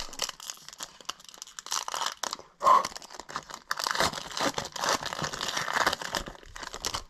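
Foil trading-card pack wrapper being torn open and crinkled in hand, a crackling that comes in bursts, with one brief loud moment about two and a half seconds in and steadier crinkling through the second half.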